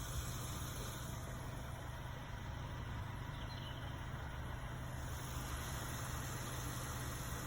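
A steady low engine hum, like a motor vehicle idling, with no change in pitch or level.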